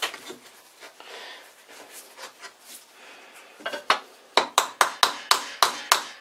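Steel drill chuck scraping and knocking as it is seated by hand in a wooden holder in a bench vise, then a quick run of sharp metallic clacks, about three a second, in the last two and a half seconds.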